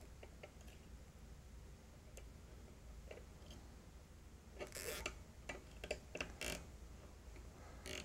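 Plastic cable ties being pulled tight around bundled fiber optic cables, giving faint ratcheting clicks in a few short runs in the second half.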